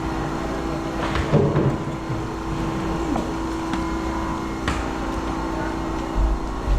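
An engine runs steadily with a constant hum, and a few sharp knocks and clatters sound on top, one of them about a second in.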